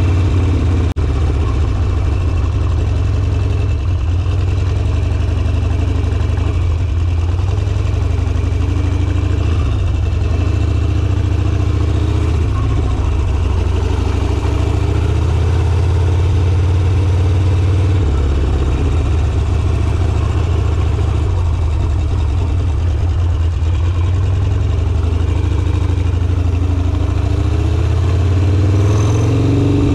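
Harley-Davidson Sportster V-twin engine running steadily at low road speed, its pitch wavering slightly with the throttle and rising briefly near the end as it pulls.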